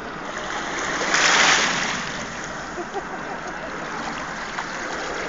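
Sea water washing and lapping with a steady noise of wind on the microphone, swelling to a louder rush about a second in.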